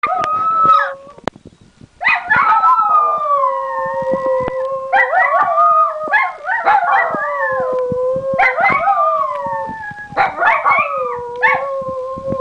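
Two Italian greyhounds howling together: long, wavering howls in two overlapping pitches that set each other off. Each fresh bout starts with sharp barks, and there is a brief lull about a second in.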